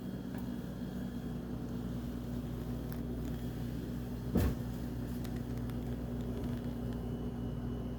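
A steady low machine hum, with a single knock about four and a half seconds in.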